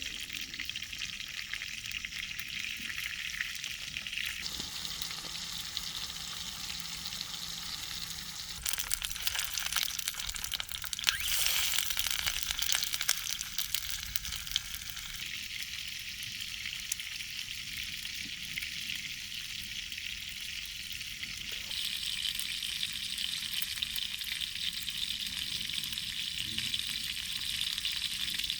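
Food frying in a pan: a steady sizzling hiss that shifts level abruptly a few times, with denser crackling from about nine to twelve seconds in.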